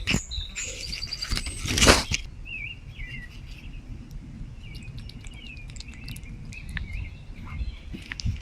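Small birds chirping and twittering throughout. There is a loud rustling, handling noise about two seconds in.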